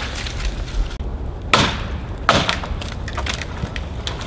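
Dead elm limb cracking and splintering as it breaks away from a live elm tree after being chopped with an axe, with two loud sharp cracks about a second and a half and two and a quarter seconds in.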